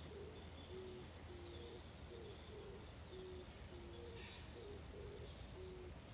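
A dove cooing in low, repeated phrases of short notes. A faint high hiss runs underneath, with a brief louder burst about four seconds in.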